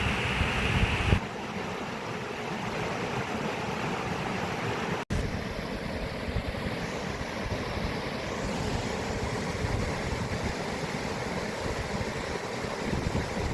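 Steady rushing water, an even wash of noise. Its tone changes abruptly about a second in, and it drops out for an instant around five seconds in, like a cut between recordings.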